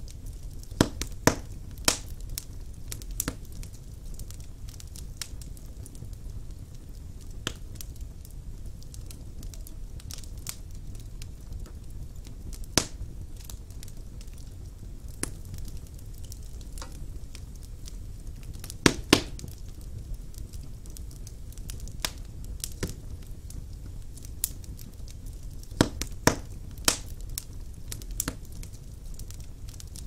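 Wood logs burning in a fireplace: a low steady rush of flame with irregular sharp crackles and pops, the loudest a quick pair of snaps about two-thirds of the way through.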